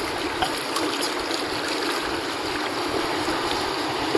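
Fast river water rushing through a rapid, a steady even wash with no breaks.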